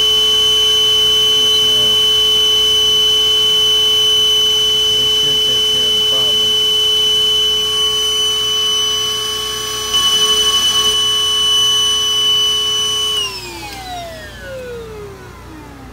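Wet vacuum motor running with a steady high whine, pulling on the end of a clogged AC condensate drain line; about thirteen seconds in it is switched off and winds down, its pitch falling.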